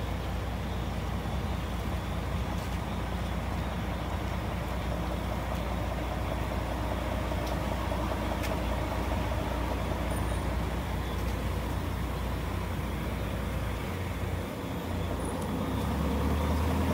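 Heavy International dump truck's diesel engine idling steadily. Near the end it dips briefly, then comes back louder.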